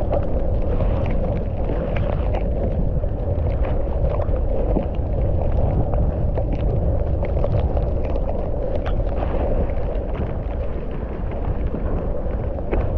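Mountain bike ridden over a rough dirt trail, heard through an action camera's microphone: a steady rumble of wind and rolling noise with frequent clicks and rattles from the bike over the ground.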